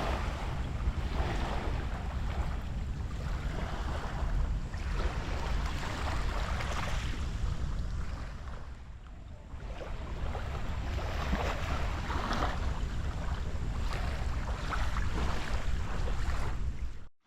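Sea waves washing in on the shore in irregular swells, with wind buffeting the microphone as a steady low rumble. The surf eases for a moment about halfway through.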